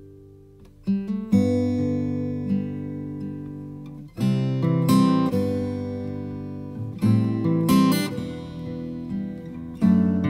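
Background music: an acoustic guitar strumming chords, a new chord struck about every three seconds and left to ring out.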